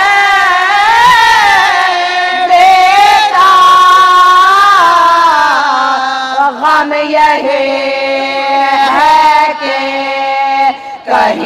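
A woman's solo voice chanting an Urdu marsiya (elegy), drawing out long, wavering held notes between the lines of verse.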